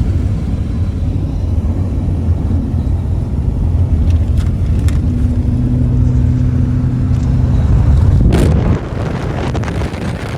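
Car driving on a rough dirt road: a steady low engine and tyre rumble that slowly grows louder, with a couple of light knocks from the body. A sharp thud comes about eight seconds in, after which the rumble eases off.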